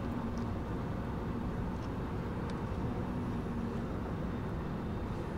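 Steady cabin noise of an Airbus A320-200 airliner: an even rush of air and engine noise with a faint low hum, and a few faint ticks.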